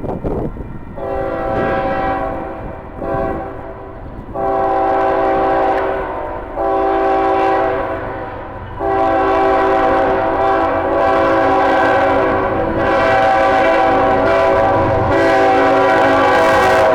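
Locomotive air horn sounding a chord in about five blasts with short gaps, the last held for about eight seconds, over the low rumble of the passing train.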